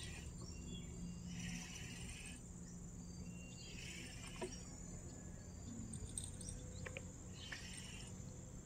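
Faint riverside insect chorus: a steady high-pitched buzz, with a raspy chirp repeating about every two seconds. A few light clicks stand out here and there.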